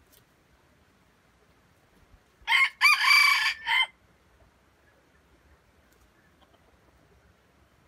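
Red jungle fowl rooster crowing once, a short crow of about a second and a half beginning about two and a half seconds in.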